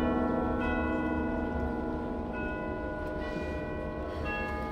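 Live theatre orchestra playing a soft introduction: held notes over a low drone, with new struck notes that ring on coming in about half a second in, again around two and a half seconds, and near the end.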